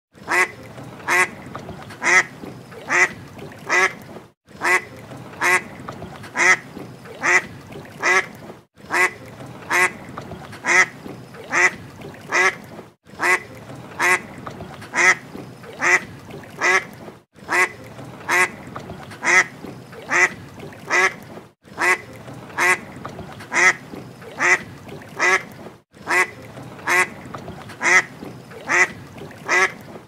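Mallard quacking in runs of four or five loud, raspy quacks, each run followed by a brief break, the pattern repeating about every four seconds.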